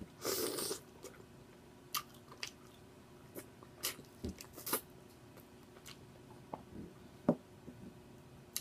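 Close-up eating sounds of chicken and noodles: wet chewing and lip smacking, with scattered sharp mouth clicks and a louder noisy burst about half a second in.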